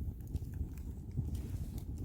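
Campfire of Korean pine wood burning: a steady low rumble with scattered small crackles and pops.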